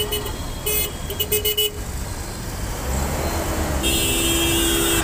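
Vehicle horns honking over the rumble of idling traffic: a quick run of short toots about a second in, and one long steady horn blast near the end.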